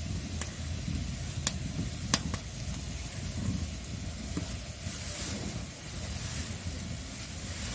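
Besan-battered pumpkin flower fritters shallow-frying in oil in an iron wok: a steady sizzle over a low rumble, with three sharp pops in the first couple of seconds.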